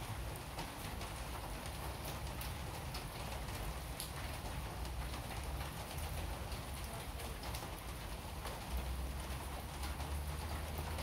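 Rain falling on wet paving, a steady patter with many separate drips, over a low rumble that gets stronger about nine seconds in.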